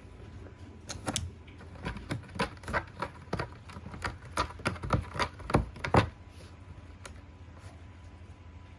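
A cat rolling and rubbing against a new cat scratcher, making a quick, irregular run of scratchy clicks that starts about a second in and stops at about six seconds.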